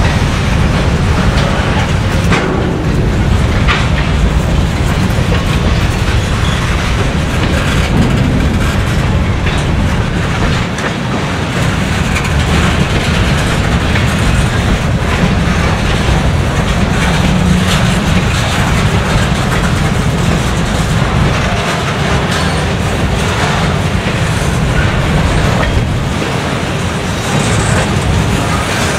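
Freight cars of a slow-moving train rolling past: a steady rumble of steel wheels on the rails, with scattered clickety-clack clicks as the wheels pass.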